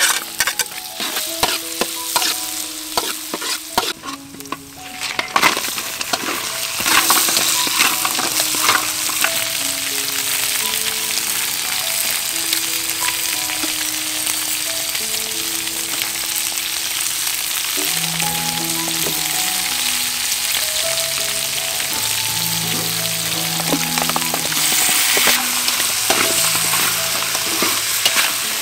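Chopped garlic and shallots, then blue crab pieces, frying in hot oil in a steel wok, stirred with a spatula. It starts as scattered crackles and builds about six seconds in to a steady loud sizzle.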